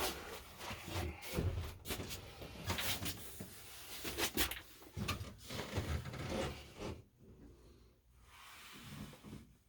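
Irregular rubbing and light knocks of handling noise, dying down about seven seconds in.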